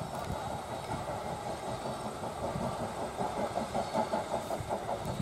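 Steam locomotive approaching at a distance, its exhaust chuffing in a quick, even rhythm that comes through more clearly about three seconds in.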